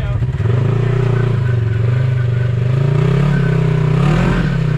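Polaris RZR side-by-side's engine revving under load as it climbs a rocky ledge, its pitch rising and falling several times.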